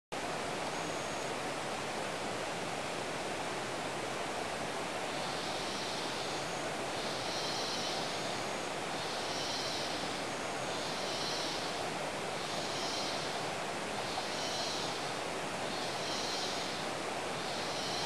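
Steady hiss of tropical forest ambience. From about five seconds in, a soft pulsing buzz high in pitch repeats about once every second and a half to two seconds, with faint short high peeps in between.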